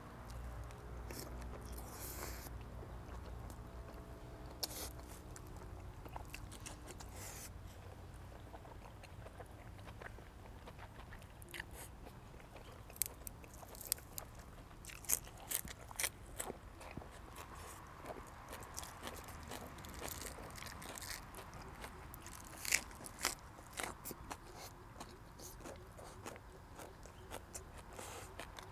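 A person chewing and crunching a mouthful of boiled pork and raw vegetables, with a run of sharp crunches in the second half.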